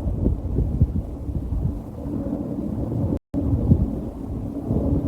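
Deep rumbling of heavy mining machinery with a steady engine hum and irregular knocks and crunches of rock. It drops out completely for a split second about three seconds in.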